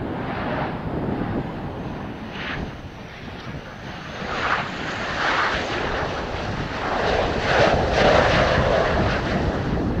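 F/A-18C Hornet's twin General Electric F404 turbofans on final approach, a rushing jet roar that grows louder as the fighter passes close, loudest about three quarters through.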